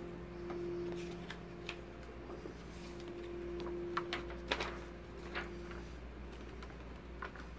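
Sheets of music paper being handled on an upright piano's music stand: scattered rustles and light taps of paper, the sharpest a little after four seconds in. The tail of a held piano note dies away in the first second.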